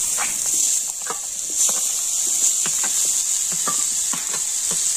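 Boiled potatoes being tipped and scraped from a steel bowl into a kadai of frying onion-tomato masala: a steady high sizzle with irregular soft taps and scrapes of metal on metal.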